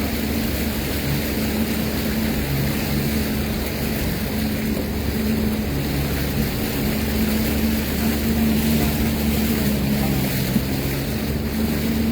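Sea-Doo Fish Pro personal watercraft's engine running at a steady speed, a constant hum under a loud rush of wind and water noise.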